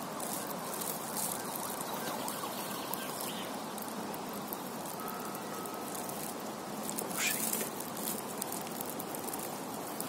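Steady background hum of distant traffic, with a brief rustle about seven seconds in.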